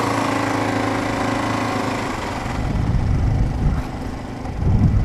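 Kawasaki KLR650's single-cylinder engine running with a steady note for about two seconds as the bike sets off. Then uneven low rumbling takes over and swells near the end, typical of wind buffeting a helmet camera's microphone once the bike is under way.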